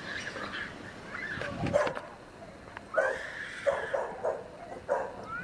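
A dog barking: a few scattered yips, then a quick run of about five short barks in the second half.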